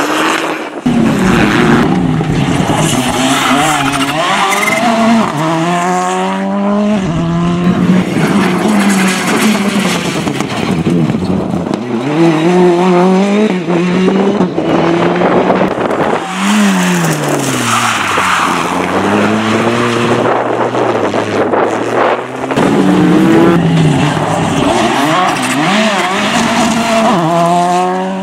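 Several rally cars, one after another, their engines revving hard. The pitch climbs through quick gear changes and drops back each time the driver lifts off.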